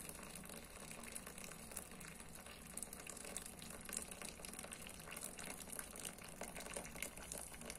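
Boiling water poured in a faint, steady trickle from an enamel kettle into a frying pan around raw meat patties.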